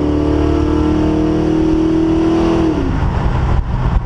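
Dodge D150 pickup's engine and exhaust heard from inside the cab, pulling at steady revs through its freshly installed 727 TorqueFlite automatic, then the engine speed drops about three seconds in and settles into a lower running drone.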